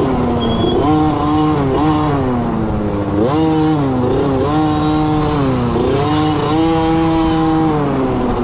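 Small pee-wee dirt bike engine heard from on board the bike, revving up and down repeatedly as the throttle is opened and closed along the trail. Its pitch rises and falls several times and is held highest for about a second near the end.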